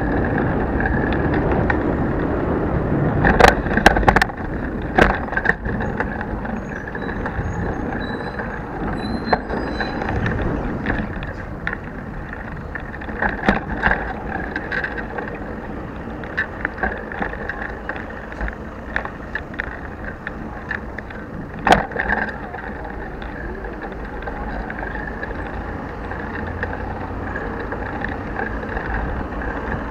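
Bicycle riding noise picked up by a handlebar-mounted action camera with no protective housing: a steady rumble of tyres and wind, with sharp knocks and rattles as the bike goes over bumps. The knocks cluster about four to five seconds in, again around fourteen seconds, and loudest near twenty-two seconds.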